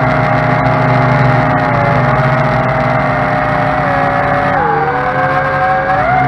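Tarantula X6 quadcopter's motors and propellers whining in flight, several pitches at once. The pitch dips about four and a half seconds in and climbs again near the end as the throttle changes.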